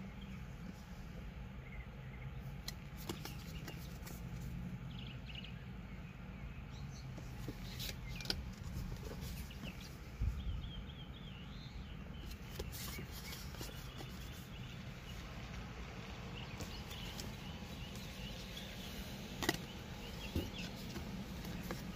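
Outdoor background: a steady low hum with scattered bird chirps and a few faint clicks and knocks, the loudest a dull knock about ten seconds in and a click near the end.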